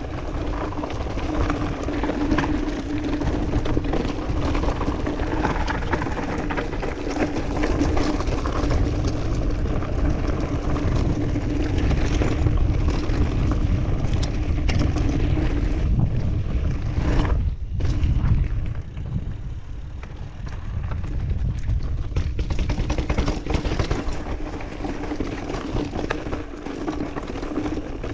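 Mountain bike rolling down a rough dirt trail: wind buffeting the camera microphone, with a rattle of knocks from the tyres and frame over stones and roots, and a steady hum underneath.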